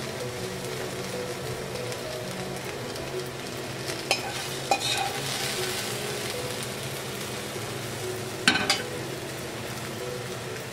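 Sliced onions frying with a steady sizzle in a stainless steel pan, stirred with metal tongs that click against the pan a few times, loudest about eight and a half seconds in.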